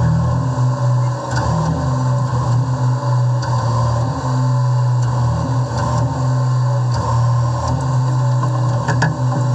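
Charter fishing boat's engine running at low speed, a steady low drone that swells and eases a little.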